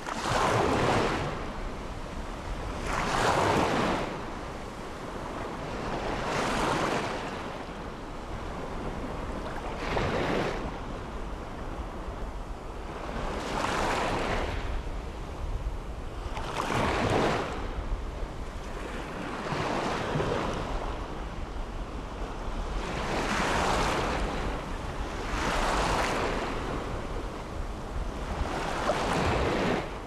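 Ocean surf breaking on a sandy beach: waves wash in and fade one after another, about every three seconds, over a steady low rumble.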